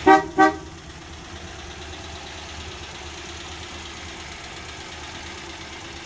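1964 Dodge Dart's 225 cubic inch Slant Six engine idling steadily on its first run after an oil change. Two short, loud beeps come right at the start.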